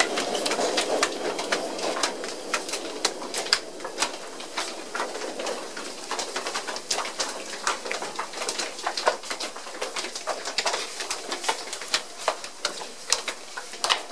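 Footsteps of a crowd climbing stairs: many shoes and heels clicking irregularly on the stair treads, with a low murmur that fades out over the first couple of seconds.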